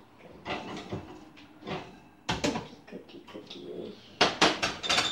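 Clanks and scrapes of a metal baking sheet being pulled off the oven rack and set down on the electric stove's coil burners. There is one knock about two seconds in and a louder cluster of clatters about four seconds in.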